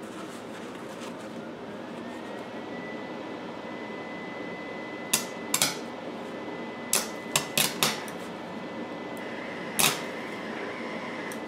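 Wire-feed welder arcing in short crackling spurts, about seven brief ones from about five seconds in, over a steady high whine. The arc keeps stopping because the wire is not feeding, which the welder puts down to having welded the wire to the contact tip.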